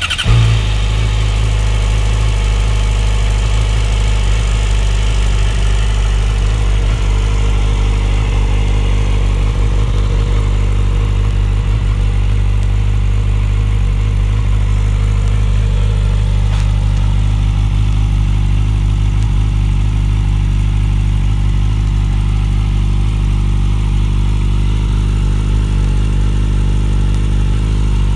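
2008 Yamaha YZF-R6 600cc inline-four breathing through an aftermarket slip-on exhaust: it fires up with a brief flare, then idles steadily.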